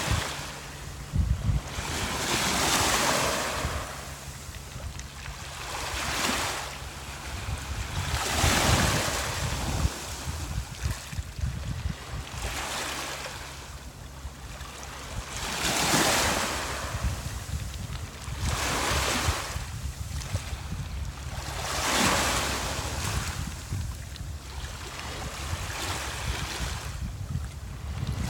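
Sea waves breaking and washing up onto a beach, the surf swelling and falling back every few seconds, with wind rumbling on the microphone.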